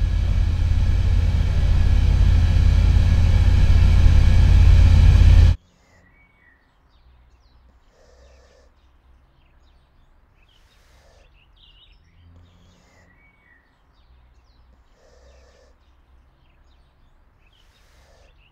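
A cremation furnace roars deep and steady, swelling louder, then cuts off suddenly about five and a half seconds in. After that there is only faint outdoor ambience with a few scattered bird chirps.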